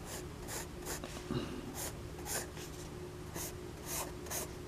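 Pencil sketching on paper: a run of short, scratchy strokes, roughly two a second, as the lines of an eye are drawn.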